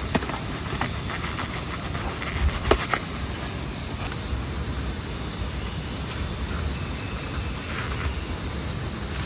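Steady hiss of rain, with a few clicks and taps of gear being handled in the first three seconds. A thin, high insect trill sounds faintly from about four seconds in.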